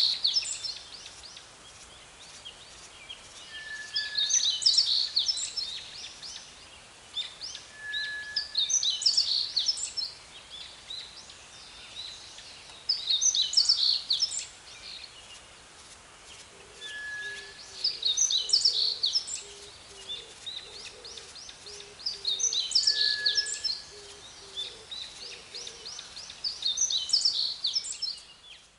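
A songbird singing the same short, quick warbled phrase over and over, about every four to five seconds, high in pitch. A brief steady whistle comes just before several of the phrases, over a faint outdoor hiss.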